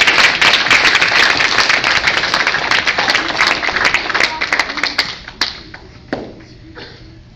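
Applause from a small audience, with children clapping close by. It starts loud and fades out about five seconds in, leaving a few scattered claps.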